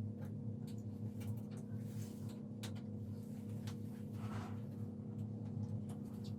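Steady low machine hum with faint scattered clicks and soft scrapes, as small plastic caps are pried off the front-panel screws with a small flathead screwdriver.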